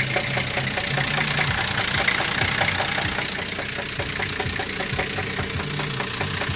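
Car engine idling with a rapid, regular knock from inside it, about five a second. The owners take it for a worn bearing shell that is close to spinning.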